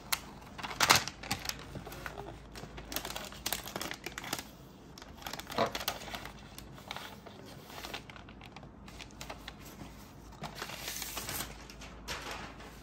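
Packaging being handled during an unboxing: irregular crinkling and rustling with scattered taps and clicks, loudest about a second in and again around the middle.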